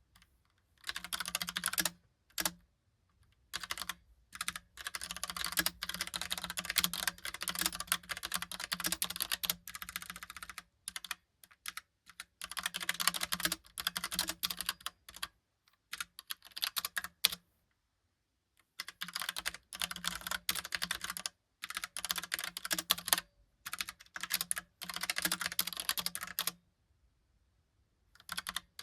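Typing on a Logicool Pop Keys mechanical keyboard with round typewriter-style keycaps: fast runs of clacking keystrokes, broken by brief pauses of a second or so several times.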